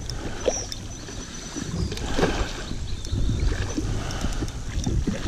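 River water lapping and splashing against a plastic kayak hull, with wind rumbling on the microphone and a few light clicks and knocks. There is a brief louder splash about two seconds in.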